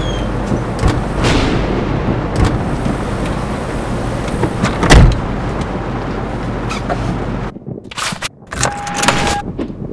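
Someone getting into a car: a steady low rumble, then a loud thud of the car door shutting about five seconds in. Near the end come sharp clicks of the seatbelt buckle latching and a short beep.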